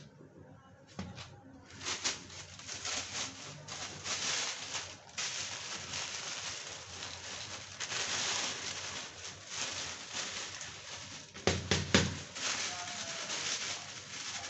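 Peanuts roasting in a kadhai on the stove, with a crackling hiss that starts about two seconds in and carries on, rising and falling. A few sharp knocks come near the end.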